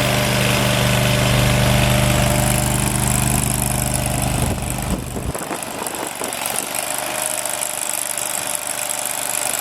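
A small mini skid steer's engine idling steadily, then shut off about five seconds in; a steady hiss carries on after the engine stops.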